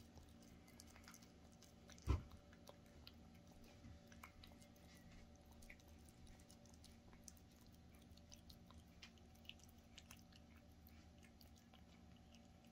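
A domestic cat eating soft wet food from a metal dish: faint, quick wet clicks of chewing and licking all through. One loud low thump comes about two seconds in.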